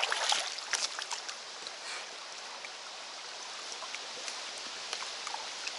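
Small forest stream running past old logs: a steady rush of water. A few short, sharp knocks in the first second and a half.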